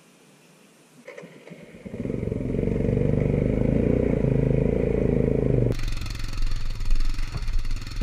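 Royal Enfield Himalayan's 411 cc single-cylinder engine firing up about a second in, then revved hard and steadily for several seconds as the bike is pushed up a slippery clay slope, dropping abruptly near the end to a lower, chugging beat with each firing stroke audible.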